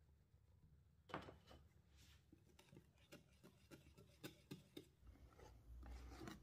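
Faint kitchen utensil handling: a sharp tap, then a run of light, quick strokes about four a second, and a longer scrape near the end. A low hum comes in after about five seconds.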